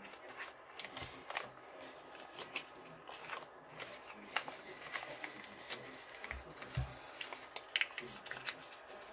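Black origami paper being folded and creased by hand: irregular crisp rustles and crackles, with a couple of dull bumps about two-thirds of the way through.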